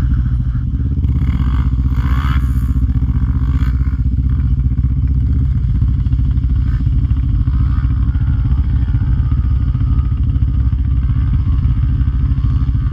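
Sport ATV engines idling steadily close by, a constant low engine note with no revving.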